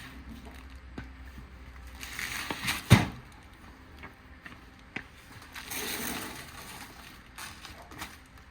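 Rustling handling noise and knocks as a large boxed cabinet is shifted, with one sharp knock about three seconds in.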